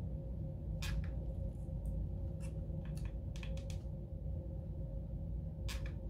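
Hot glue gun and cardboard being handled: a scattering of light clicks and taps as the gun is pressed to the cardboard seams, over a steady low hum.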